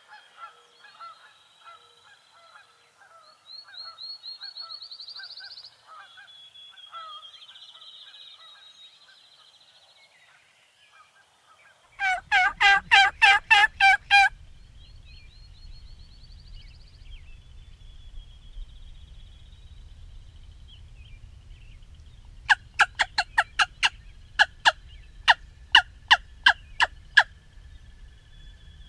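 Faint dawn songbird chirping, then about 12 s in a loud, rapid, rattling wild turkey gobble lasting some two seconds. Later comes a run of about a dozen loud, evenly spaced sharp calls.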